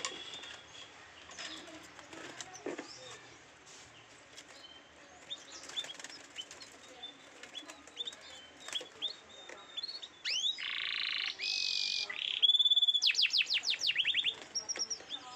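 Canary song. Scattered short chirps for the first ten seconds or so, then a loud phrase of buzzy trills, a held whistle and rapid repeated notes near the end.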